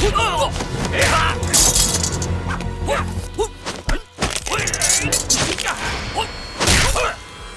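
Fight-scene soundtrack: background music under punch and kick impact effects and swishes, with fighters' shouts and grunts about a second in and again near five and seven seconds.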